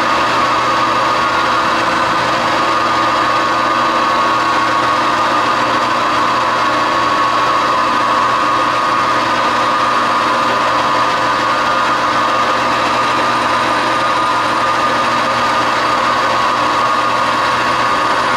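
Metal lathe running steadily while turning a small steel screw blank: an even machine hum with a few held tones and no pauses or knocks.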